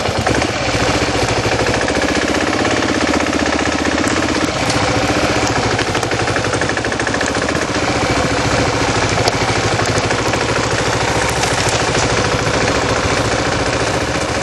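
Kawasaki KLR650's single-cylinder four-stroke engine running with a steady, rapid thumping beat.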